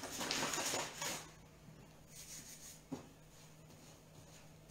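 A rush of hissing noise lasting about a second at the start. Then come faint rubbing sounds and one light knock about three seconds in, as hands knead spelt-flour dough on a floured wooden board.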